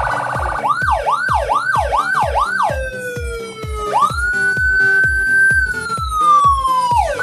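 Electronic police-escort siren, a multi-tone dual-tone unit through a 15-watt TOA horn speaker, switching between patterns. First a quick falling yelp repeats about two or three times a second, then a long falling wail jumps back up, holds and slides slowly down, and the quick yelps return near the end. A regular low thump of about three a second runs underneath.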